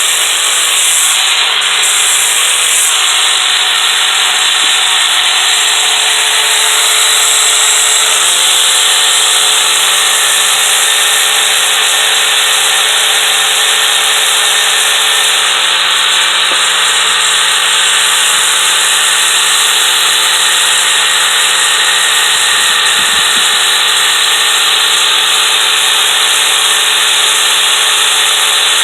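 Power tool spinning a sanding disc against the steel rails of a Stihl chainsaw guide bar: a steady grinding hiss over a constant motor whine. The disc is lightly dressing the burr off the bar rails.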